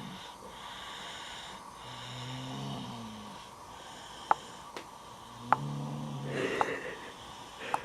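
Slow, regular snoring: two long, low, pitched snores a few seconds apart, the second followed by a breathy rush of air. Several sharp clicks sound in the second half and are the loudest things heard.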